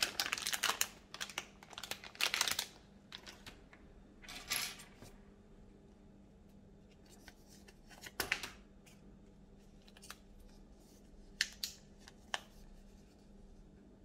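Thin plastic LEGO polybag crinkling and rustling as it is handled for the first few seconds, then softer rustles and handling noise, with two sharp clicks near the end.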